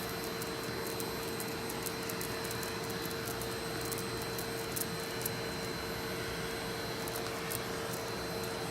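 Vacuum cleaner running steadily, a constant hum-like whine over a rushing noise, as its nozzle sucks shed fur off a cat's coat; faint ticks now and then.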